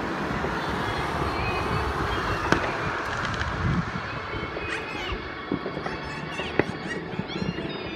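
Many distant fireworks going off at once: a steady rumble of bangs and crackle with a few sharper cracks, and whistling rockets joining near the end.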